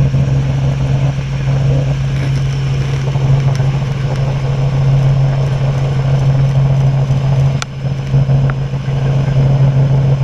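Robinson R44 helicopter in flight, heard from inside the cabin: the steady drone of its six-cylinder piston engine and rotors, with one brief click about three-quarters of the way through.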